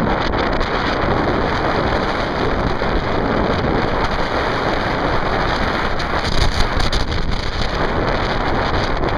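Strong wind buffeting the camera microphone: a steady, loud rushing noise, with a brief louder gust about six and a half seconds in.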